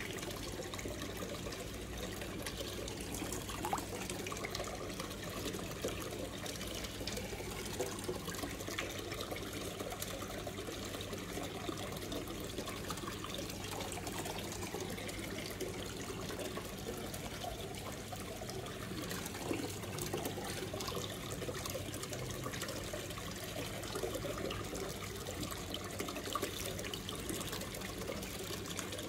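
Aquarium water trickling steadily over a constant low hum.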